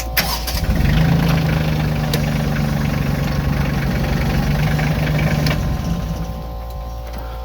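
Tractor engine starting and running at a steady idle, dying away about six seconds in.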